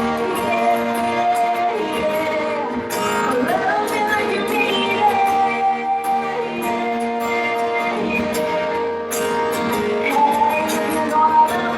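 Live band music with a woman singing over sustained instruments and a steady beat of drum and cymbal hits.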